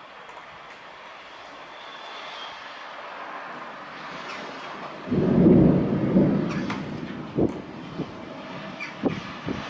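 Thunder: a loud low rumble about five seconds in, dying away over a second or two, followed by a few short sharp cracks, over a steady background hiss.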